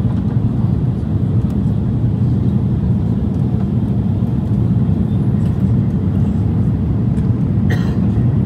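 Steady cabin rumble of an Airbus A330 airliner in flight, an even low roar of engine and airflow noise, with one brief sharp sound near the end.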